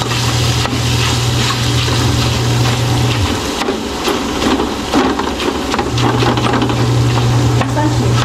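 Tofu sizzling in hot oil in a wok while a metal ladle stirs and mashes it, scraping against the pan. A steady low hum runs underneath and drops out for a few seconds midway.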